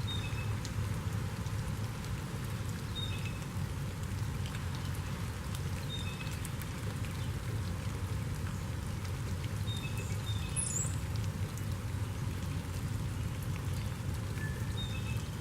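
Steady rain falling, with scattered drop ticks over a low, even rumble. A bird gives short two-note calls, a high note then a slightly lower one, every few seconds, and a thin high note sounds near the middle.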